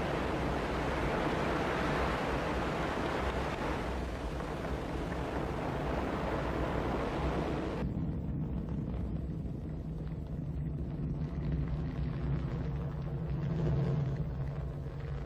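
Ariane 5 rocket rumbling steadily during liftoff, the roar of its main engine and solid boosters. About eight seconds in the sound changes abruptly: the high hiss drops away, leaving a deeper rumble.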